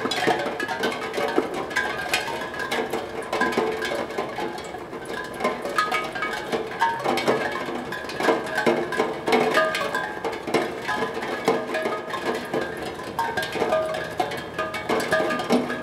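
Raindrops striking a steel tongue drum: a steady patter of drops with a random, continuous scatter of short ringing notes as drops hit the tongues.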